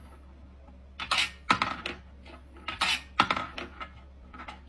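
Metal ball of a wooden desk toy clinking and clattering in its bowl and on its wire track while a kitten paws at it: irregular sharp clinks, several of them loud.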